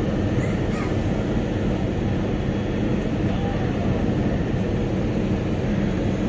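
Passenger ship's engines running with a steady low rumble as the ship manoeuvres in to berth at a jetty, heard from the open deck.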